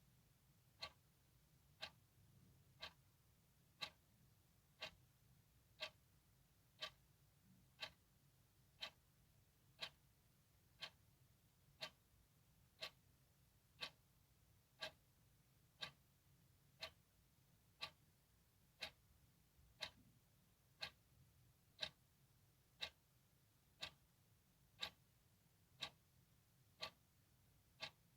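A clock ticking steadily, one sharp tick a second.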